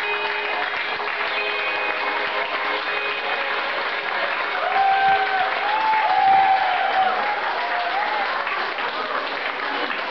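Audience applauding, with the last held notes of the song fading out in the first few seconds. Shouted cheers rise over the clapping about midway through.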